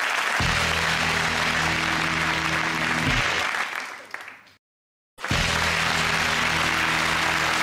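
Studio audience applauding over a short music sting of a few held notes. The sound fades out about four seconds in, there is half a second of silence, and then the applause and the same sting start again.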